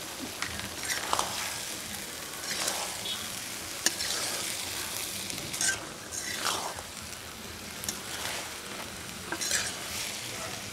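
Metal spatula stirring and scraping arum lobe stems and small prawns frying in oil in a metal wok, with steady sizzling and repeated scrapes against the pan.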